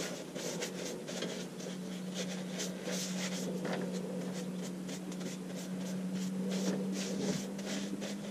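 Sand sealer being rubbed by hand onto a piece of wood in repeated short scratchy strokes, about two to three a second, over a steady low hum.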